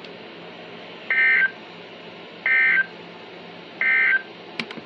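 Midland NOAA weather alert radio's speaker sounding three short, harsh data bursts about 1.4 seconds apart. These are the SAME end-of-message codes that close a broadcast tornado warning. A few sharp clicks follow near the end.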